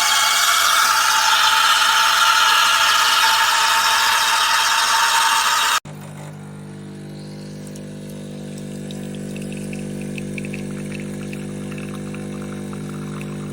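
Swan SK22110BN espresso machine running: a loud, even hiss for about six seconds, then an abrupt change to the pump's steady buzzing hum. A crackling splutter joins the hum a few seconds later.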